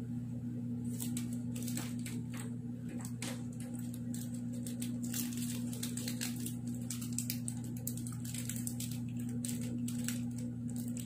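Crinkling and crackling of a chocolate bar's wrapper being handled, as many short irregular crackles that grow busier about halfway through. A steady low electrical hum runs underneath.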